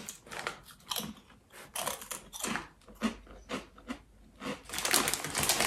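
Crunching and chewing of a crisp quinoa chip in the mouth, in irregular crackly bites. Near the end, a longer run of crinkling from the chip bag being handled.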